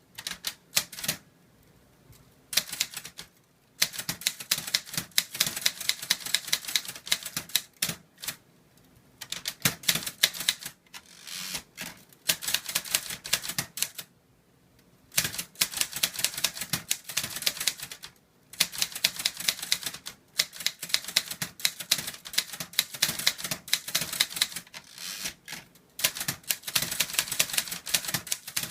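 Hangul typewriter being typed without an ink ribbon, its typebars striking through carbon paper. A few single key strikes come first, then rapid runs of keystrokes several seconds long, broken by short pauses.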